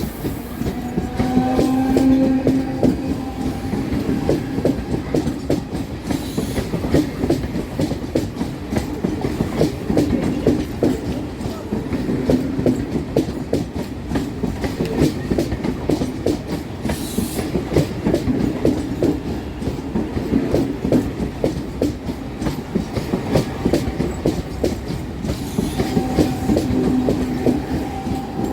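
Mumbai suburban electric local train running along the track, its wheels clattering fast and continuously over the rail joints. A low hum rises and fades several times.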